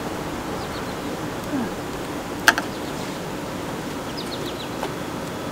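Steady outdoor background hiss with a few faint, short high chirps from birds. About two and a half seconds in, a single sharp click.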